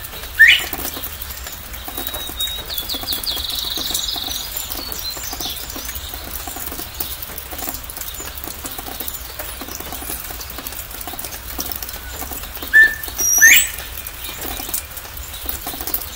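Northern bobwhite giving its 'bob-white' call twice, a short note and then a sharply rising whistle, once right at the start and again about 13 seconds in, over steady rain pattering. A short buzzy trill sounds about 3 seconds in.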